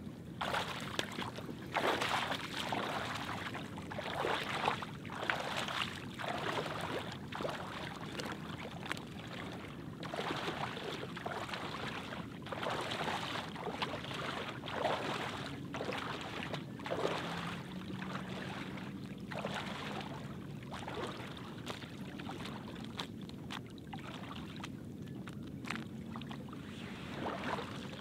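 Shallow water splashing and sloshing in irregular surges as a person in waders wades through it, pushing an inflatable kayak.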